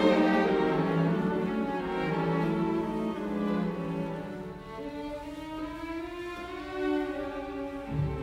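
Music with a slow melody of sustained bowed-string notes, violin and cello in tone; a deep bass note comes in at the very end.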